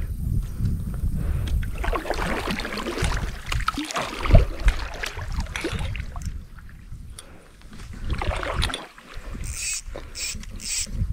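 Water sloshing and splashing around a plastic fishing kayak, with a low wind rumble on the microphone and a single knock against the hull about four seconds in.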